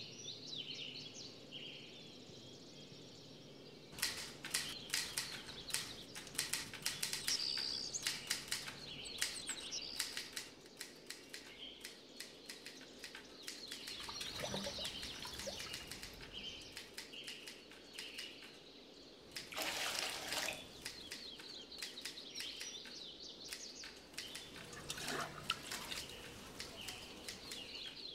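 Birds chirping, with runs of sharp clicks and knocks and a rush of noise lasting about a second, some twenty seconds in.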